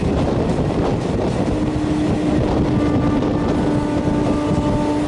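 WAM4 electric locomotive's horn sounding one long steady note, starting about a second and a half in and held for nearly four seconds, over the rumble of a passing train.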